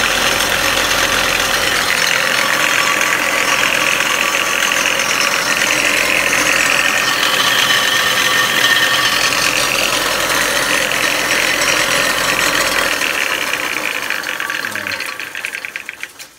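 Craftsman 113.225931 6x48-inch belt and 9-inch disc sander running steadily and loudly, with a belt the owner says is a little loose but runs okay. Near the end it winds down and stops.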